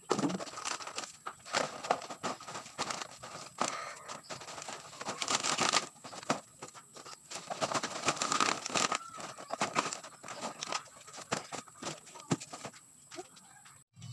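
Empty plastic bottles crinkling, crackling and knocking together as they are gathered and stuffed by hand into a woven plastic sack, a dense irregular run of crunches. It cuts off abruptly near the end.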